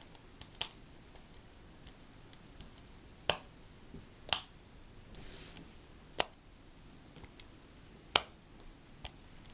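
Sharp plastic clicks from a fidget toy being handled: about seven separate clicks at irregular intervals, with a faint brief hiss in between.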